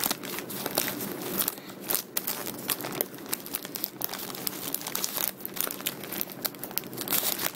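Plastic courier mailer bag crinkling and rustling in irregular crackles as it is handled and cut open.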